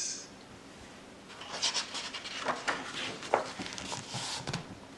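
A picture book's page being turned and pressed flat by hand: paper rustling and sliding, with light scrapes, starting about a second and a half in.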